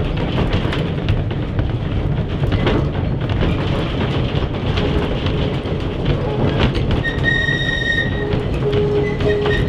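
Manx Electric Railway Winter Saloon tramcar heard from inside the saloon: steady rumble and clatter of the wheels on the track, running slowly. From about seven seconds in, a steady high-pitched wheel squeal comes and goes.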